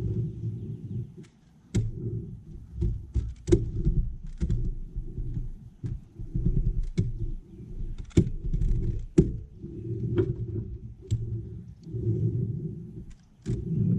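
A dozen or so sharp clicks and knocks at irregular intervals, over a low, uneven rumble that comes and goes.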